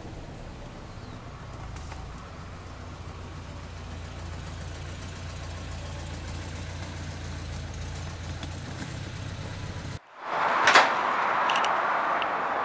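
Air-cooled VW Beetle's flat-four engine and road noise, a steady low drone. It cuts off abruptly about ten seconds in and gives way to a louder, hissier background with one sharp click.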